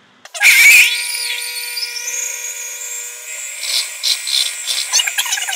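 Electric hand mixer starting up in waffle batter, its motor whine rising as it gets up to speed about half a second in, then running steadily. The footage is sped up, so the whine sounds higher than normal.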